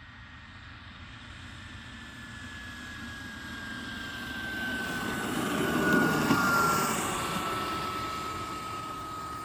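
Xicoy 45 micro turbine in a radio-controlled T-33 model jet flying past: a high whine that slowly falls in pitch over a jet rush that grows louder, peaks about six seconds in, then fades somewhat.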